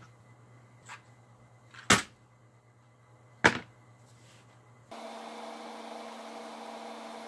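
Two sharp knocks about a second and a half apart as a small canvas block and a cardboard box of toothpicks are set down on a cardboard tray, with a lighter knock before them. About five seconds in, a steady electrical hum starts and continues.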